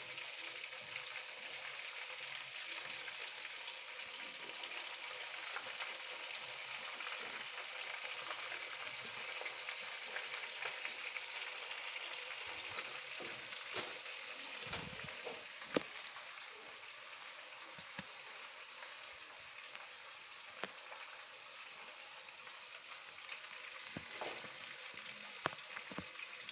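Egg-coated cabbage rolls deep-frying in a pan of hot oil, a steady sizzle. Tongs click against the pan a few times in the second half as the rolls are turned.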